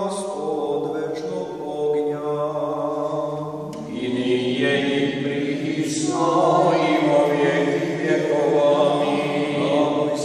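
Serbian Orthodox liturgical chant sung by unaccompanied voices, with long held tones. The singing drops in pitch and grows fuller and louder about four seconds in.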